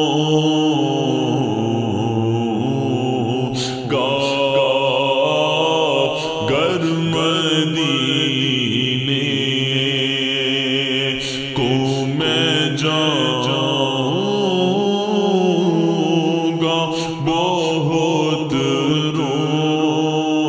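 Wordless vocal chanting in the style of a naat: sustained, gliding voices over a steady drone.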